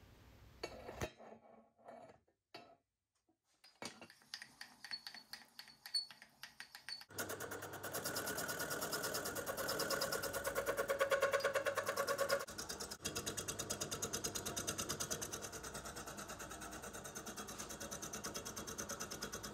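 A few scattered clicks and knocks, then about seven seconds in a milling machine's end mill starts cutting an aluminium cam cover, a steady, fast-repeating cutting chatter that is loudest for a few seconds and then eases slightly.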